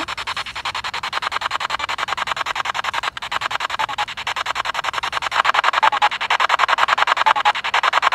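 Spirit box sweeping through radio stations: a hiss of static chopped into a rapid, even flutter many times a second, louder from about five seconds in. Brief fragments of broadcast sound come through, one of which is taken for a spirit saying "Go".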